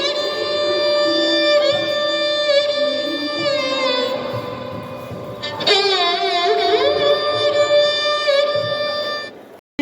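Music: a melody of long held notes, with a wavering, ornamented passage about six seconds in. It breaks off briefly near the end.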